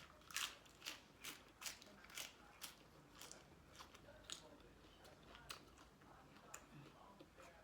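Close-up chewing of a mouthful of spicy seafood papaya salad with squid and shrimp: crisp crunching bites about twice a second, growing weaker after the first few seconds.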